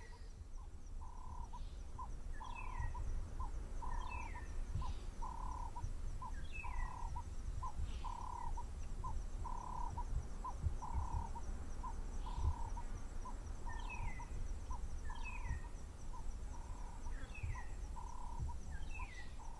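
Evening calls of night animals: a steady run of short hoot-like notes, about two a second, with a falling chirp every few seconds over it and a faint high insect trill behind.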